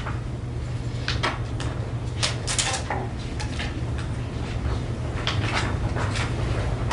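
Sheets of paper rustling and being shuffled close to a lectern microphone, in short scrapes and crackles, over a steady low electrical hum in the audio feed.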